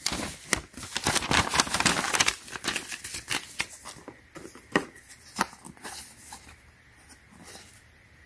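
Paper rustling and crinkling as a folded instruction sheet is handled, dense for the first few seconds, then thinning to scattered taps and clicks of cardboard packaging being handled.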